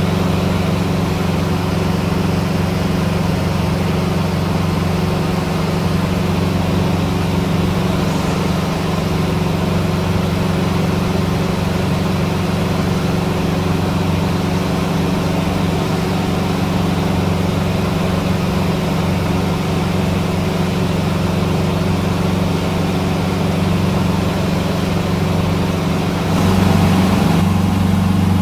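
Cessna 150's four-cylinder Continental O-200 engine and propeller in cruise, heard inside the cabin as a steady drone. Near the end it steps up louder and harsher.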